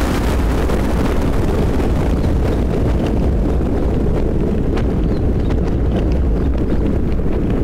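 Thunderstorm: a low, steady rolling rumble of thunder under rain, with a bright crackling hiss fading out over the first second and faint scattered drop ticks.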